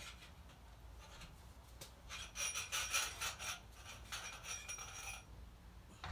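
Steel fork spring and metal fork parts clinking and scraping as the spring is drawn out of the fork over a drain pan: a run of quick metallic rattles with a light ringing, starting about two seconds in and stopping about three seconds later.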